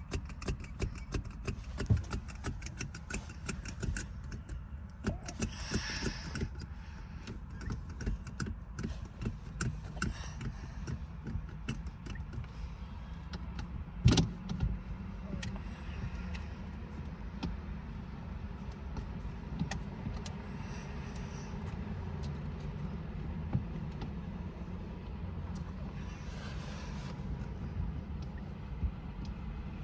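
Plastic parts of a car phone mount being handled and fitted together: repeated small clicks and rattles, busiest in the first ten seconds, with one sharper knock about fourteen seconds in, over a steady low rumble in the car cabin.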